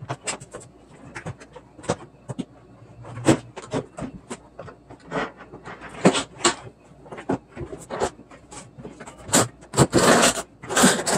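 A dishwasher being pushed and shifted into its under-counter opening: irregular knocks and scrapes, with a longer, louder scrape near the end as it slides in.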